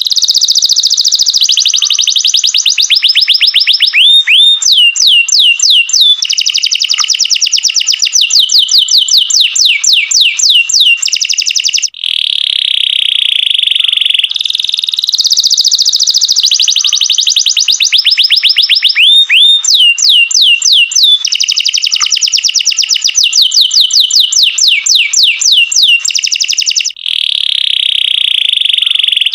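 Domestic canary singing a long, loud song of fast trills and rolls, with rapid runs of repeated sweeping notes, breaking off briefly twice.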